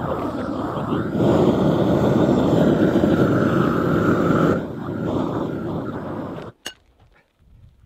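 Gas roofing torch burning with a steady noise as it heats bitumen roofing, louder for a few seconds in the middle. It stops abruptly about six and a half seconds in, and a single sharp click follows.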